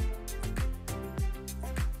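Background music with a steady drum beat over sustained chords.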